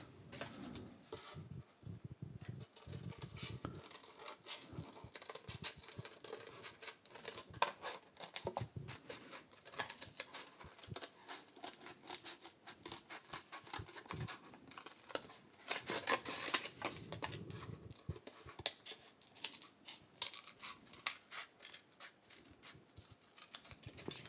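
Scissors cutting through corrugated cardboard: a long series of short snips and crunches as the blades work along a curved line.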